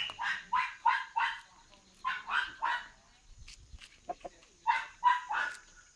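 A dog barking off-camera in quick runs of short barks, three runs in all: about five barks at the start, three about two seconds in, and four near the end.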